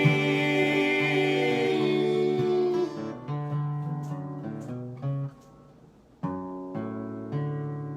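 Acoustic guitar closing out a bluegrass gospel song. A full chord rings for about three seconds, then a run of picked notes follows, a brief pause, and more plucked chords.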